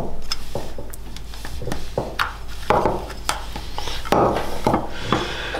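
Irregular clicks, light knocks and rubbing as a plastic motorcycle indicator, its keeper plate and wiring are handled against a black tail tidy bracket on a wooden workbench.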